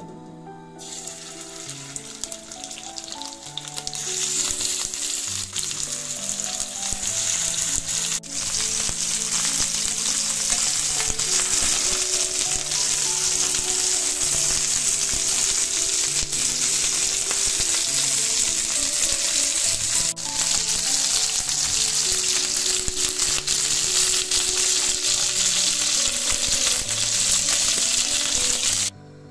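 Chicken wings frying in hot olive oil in a nonstick pan: a steady sizzle that builds over the first few seconds as the wings go in, then holds loud. Soft background music plays underneath.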